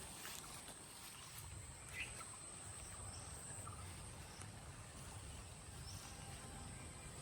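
Faint outdoor ambience: insects keep up a steady high-pitched drone over a low rumble, with one brief chirp about two seconds in.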